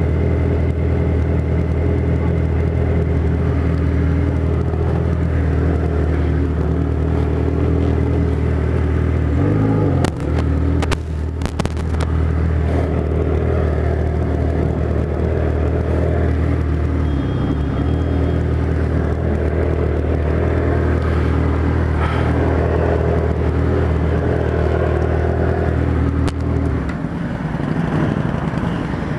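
Kawasaki Z1000's inline-four engine running loud at a steady engine speed through a 4-into-1 straight-pipe exhaust, its note dipping briefly about ten seconds in and holding steady again until it stops near the end.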